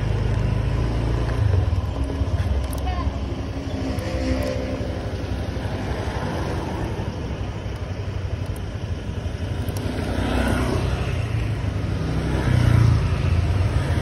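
Motor scooter traffic: a steady low rumble of small scooter engines running close by, with engine notes rising in pitch as scooters rev about four and ten seconds in.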